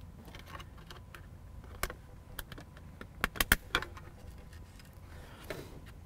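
Small clicks and light rattles of two trim clips being pushed onto the front edge of a plastic console armrest delete panel, with a quick cluster of sharper clicks a little past the middle.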